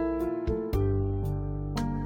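Instrumental background music: held notes with light percussive hits.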